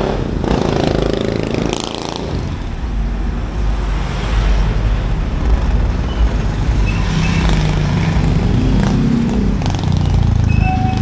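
Street traffic: motor vehicle engines running close by, one falling in pitch as it passes about a second in, over a steady low rumble.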